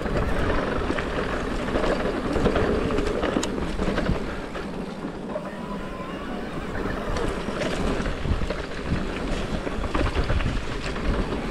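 Mountain bike riding down a dirt singletrack: tyres rolling over dirt and roots, the bike rattling with scattered clicks and knocks, and wind rushing over the camera microphone.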